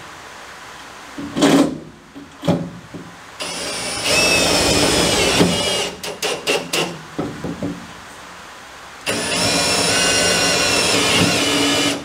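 Cordless drill driving 65 mm roofing screws through the steel drawer base into the ute tray: a couple of knocks near the start, then the motor whines in a long run, a few short trigger pulses, and a second long run near the end.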